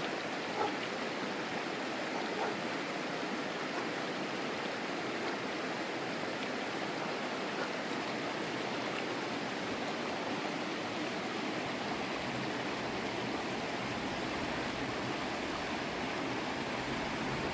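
Big Thompson River rushing steadily over rocks, an even, continuous water rush. A low hum rises under it near the end.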